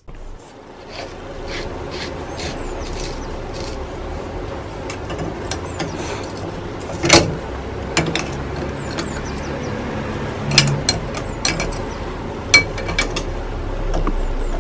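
Scattered metallic clicks, knocks and scraping of hand tools at work on a car, over a steady low hum; the sharpest knocks come about halfway through and again near the end.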